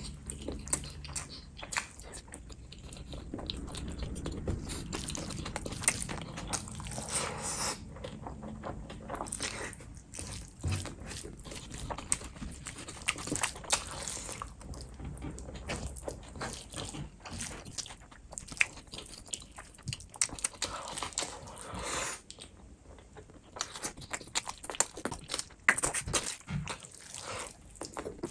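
Close-miked eating sounds of a man chewing rice in gravy eaten by hand: wet chewing, lip smacks and many irregular clicks.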